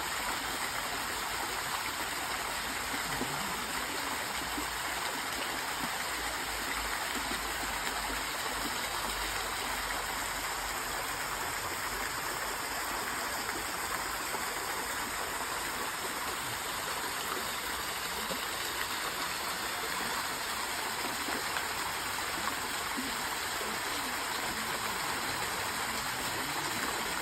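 Flowing stream water rushing steadily in an even, unbroken wash.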